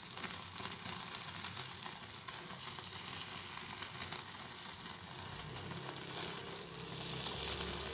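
Marinated cauliflower pieces on skewers sizzling and crackling as they roast directly over an open gas burner flame, growing louder near the end.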